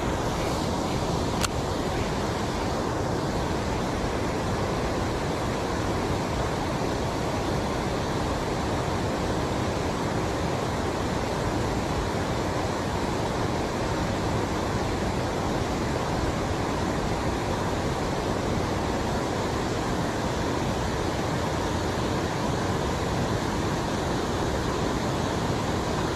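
Steady rushing noise at an even level, with one sharp click about one and a half seconds in.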